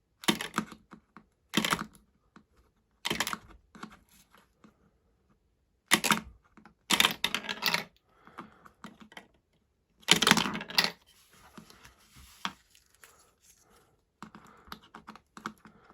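Plastic marble run pieces and marbles clicking and clattering in short, sharp bursts, about six of them, with lighter ticking in between.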